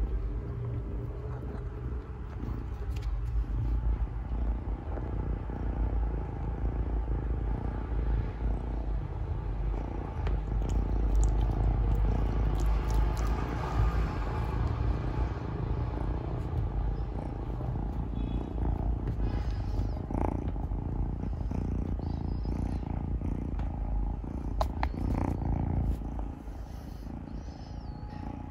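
Domestic cat purring close by, a steady low rumble, with a few faint clicks mixed in; the purring drops away a couple of seconds before the end.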